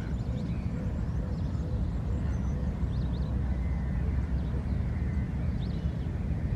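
Outdoor waterside ambience: a steady low rumble with a few faint, high bird chirps over it.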